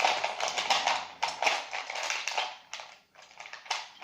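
A small plastic glitter container shaken and tapped, rattling in quick clicky bursts as blue glitter is sprinkled out, with a short pause about three seconds in before another shake.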